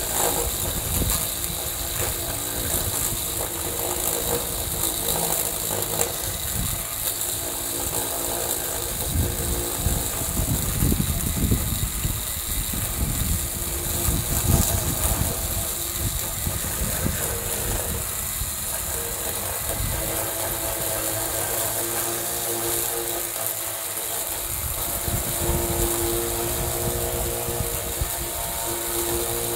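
Milwaukee M12 Fuel Hatchet brushless battery pruning saw, fitted with a 14-inch Oregon bar and chain, running steadily under load as the chain cuts down through a weathered 2x6 board.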